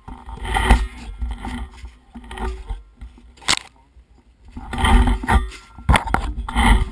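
Muffled rubbing and knocking as diving gear and regulator hoses shift against a body-mounted camera's housing, with a sharp click about three and a half seconds in.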